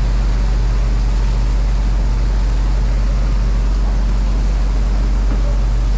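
Fishing boat's engine running with a steady low drone, under an even wash of noise.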